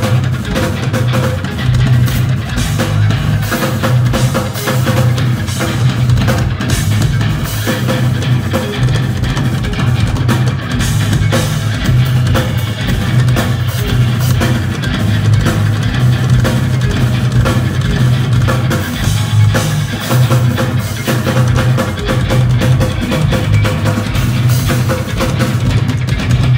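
Live instrumental progressive metal: a drum kit and eight-string electric guitars playing together, with a driving, pulsing low riff.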